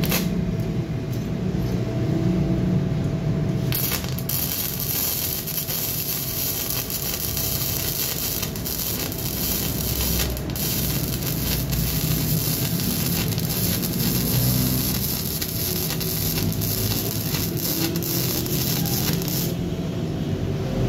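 MIG welding arc crackling and hissing on steel plate: a short burst as the arc strikes right at the start, then a continuous bead of about fifteen seconds that stops shortly before the end.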